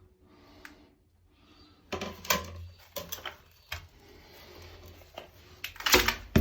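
Hard knocks, scraping and clatter from work at an exposed old drain pipe with a PVC liner inside. A sharp clatter comes about two seconds in, then a few single knocks, and the loudest crash comes near the end.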